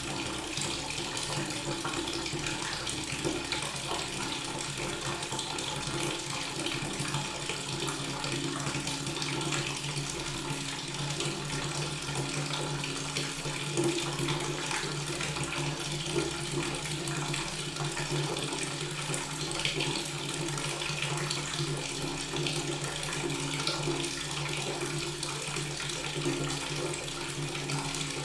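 Water running steadily from a tap into a sink, a constant splashing stream.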